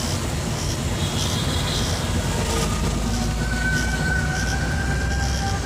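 Steady low rumble of engine and road noise heard from inside a moving car in city traffic. About three and a half seconds in, a long steady high tone from the traffic outside sounds faintly for nearly two seconds.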